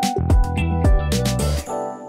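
Background music with a drum beat and instrument notes. The drums stop near the end, leaving held notes ringing on.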